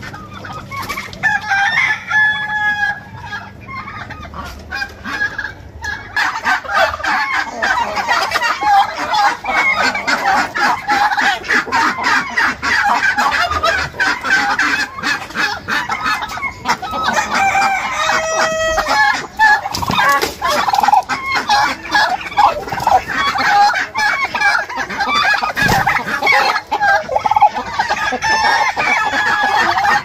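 A flock of chickens clucking and calling, with roosters crowing. The calling is sparse at first and becomes a dense, overlapping din about six seconds in, with one long crow a little past the middle.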